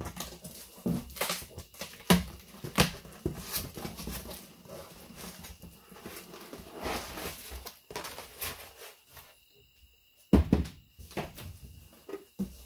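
Cardboard box being opened by hand: flaps and inner cardboard scraping, bumping and rustling in a string of sharp knocks. After a short pause about ten seconds in comes the loudest thump, and near the end the soft rustle of the non-woven cloth wrapping being handled.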